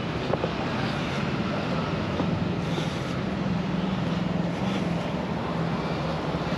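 Traffic noise on a town street: a steady low engine hum over a constant hiss, the hum growing stronger a couple of seconds in.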